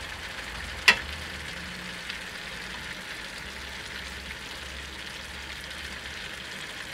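Steady quiet sizzle from a stainless steel pan of onion, grated carrot and water cooking over medium-high heat, with one sharp click about a second in.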